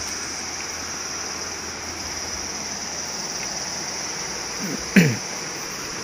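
Steady high-pitched drone of an insect chorus over the hiss of forest ambience. About five seconds in, one brief sound sweeps quickly down in pitch.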